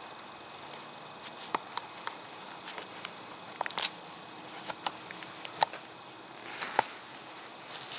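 Scattered sharp clicks, knocks and short rustles as the camera is swung on its mount and a camo compound bow is taken off its hanger by a gloved hand. The loudest knocks come a little past halfway and near the end.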